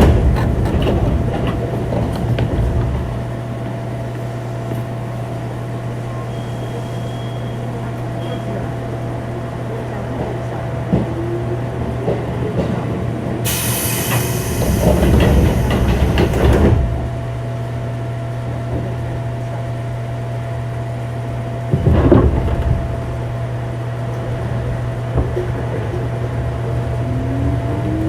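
Onboard running sound of a 205 series electric multiple unit motor car. It hums steadily with rail and bogie rumble that swells loud at times, and its inner-fan traction motors give a faint rising whine twice. A burst of hiss comes midway.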